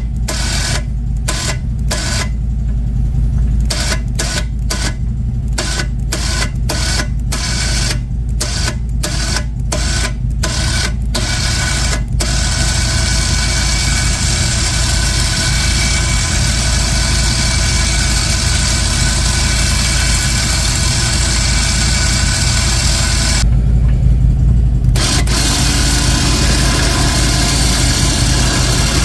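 Electric winch on a CFMoto UForce 1000 reeling in its synthetic rope, switched on and off in short spurts for the first dozen seconds, then running steadily for about eleven seconds, pausing briefly and running again near the end. Under it a steady low engine hum.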